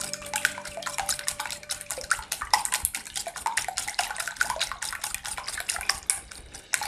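Wire balloon whisk beating raw eggs in a glass bowl: rapid, irregular clicking of the metal tines against the glass with wet splashing of the egg, easing off briefly near the end.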